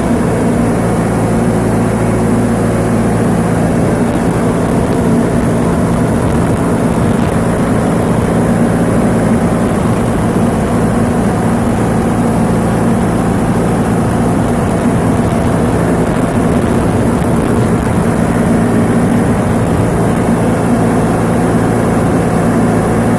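Diesel engine running steadily at a constant speed, with no change in pitch or level.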